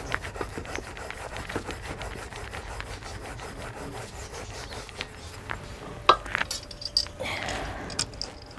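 Wooden rolling pin rubbing back and forth as paratha dough is rolled out, a steady rasping rub. A few sharp clicks and knocks come near the end.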